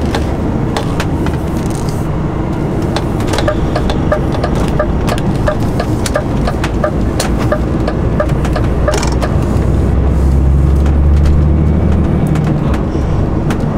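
Inside a lorry cab on the move: the diesel engine runs with a steady low drone, and a turn indicator ticks evenly, about two and a half ticks a second, for several seconds in the middle. Near the end the engine note grows louder for a couple of seconds.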